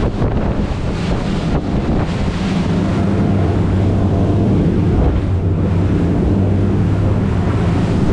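Boat running at speed on open water: a steady drone from its outboard engines, mixed with heavy wind buffeting the microphone and rushing water.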